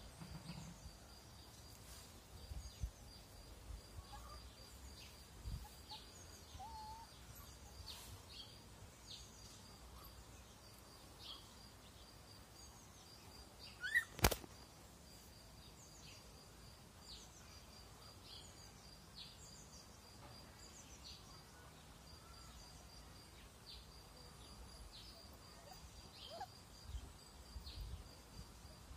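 Quiet rural outdoor ambience with birds chirping on and off. About halfway through there is one sharp, loud snap.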